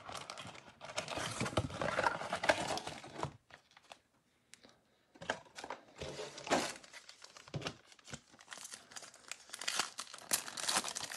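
Crinkling and tearing as a trading-card box is torn open and its foil card packs are handled, with a pause of a second or two after about three seconds; near the end a foil pack is torn open.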